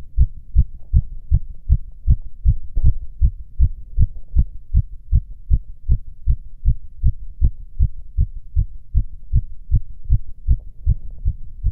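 A man's heartbeat heard through a stethoscope: a fast, steady rhythm of paired low thumps, the lub-dub of the two heart sounds. It is a fast heart rate with nothing abnormal in it.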